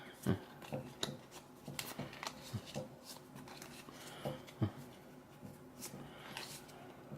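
Trading cards handled by hand, sliding and tapping against each other: a run of soft scattered ticks and rustles.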